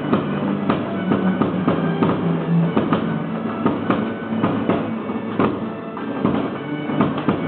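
Music with held droning tones under many sharp, irregularly spaced percussive strikes.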